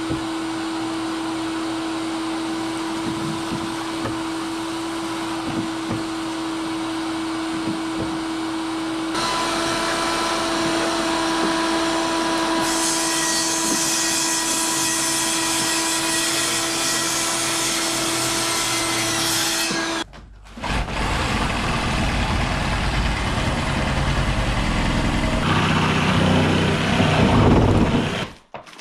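Shop vacuum running with a steady hum, getting brighter and hissier about a third of the way in. After a short break about two-thirds in, a louder, rougher, lower-pitched power-tool noise takes over.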